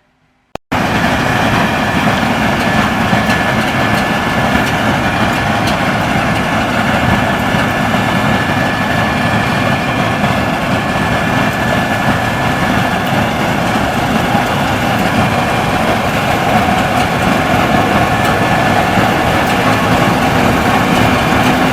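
Case IH Axial-Flow 7130 combine harvester running steadily, engine and machinery noise with a faint high whine. It comes in suddenly about a second in, after near silence.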